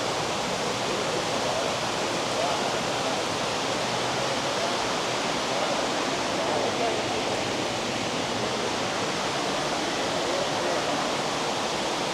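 Steady rush of running water, with faint voices murmuring underneath.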